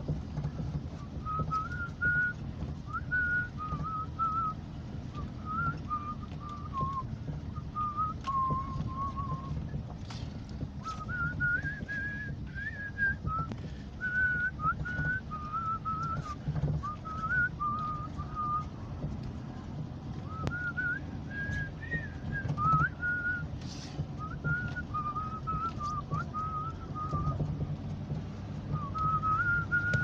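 A person whistling a melody in short wandering phrases, over the steady low rumble of a vehicle driving slowly on a rough dirt road, heard from inside the cab. A few short knocks come from bumps in the road.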